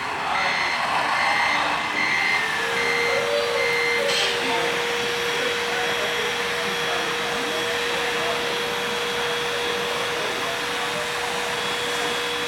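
Truck reversing beeper, evenly pulsed about twice a second, stopping about two seconds in. A steady whirring with a constant hum tone follows.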